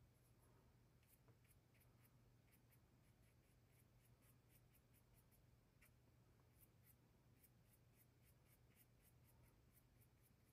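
Near silence: faint, irregular scratching ticks of a paintbrush dabbing and dragging oil paint on a panel, over a low steady hum. The paint, mixed with Galkyd medium, is turning tacky and dry under the brush.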